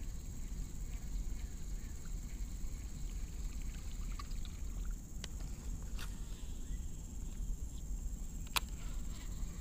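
Outdoor ambience on a riverbank: a steady low rumble under a constant high-pitched drone, broken by a few sharp clicks, the loudest near the end.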